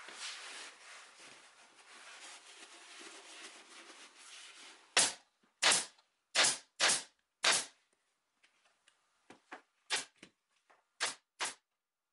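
A leather seat cover rustling as it is handled, then a pneumatic staple gun firing staples through the leather into a wooden seat base. Five sharp shots come in quick succession about five seconds in, and several softer ones follow near the end.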